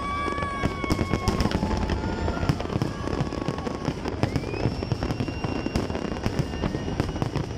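Fireworks display: a dense, irregular stream of bangs and crackles from bursting aerial shells and ground fountains. A few long, steady whistling tones sound over it near the start and again from about halfway through.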